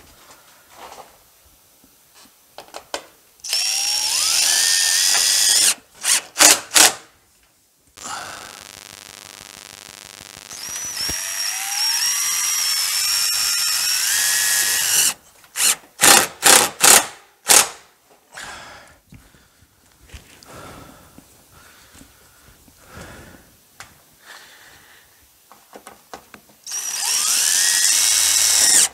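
Cordless drill driving screws through corrugated metal roofing panels into the wood below. Three times the motor spins up, its pitch climbing over a few seconds, and each run ends in a few quick short bursts on the trigger.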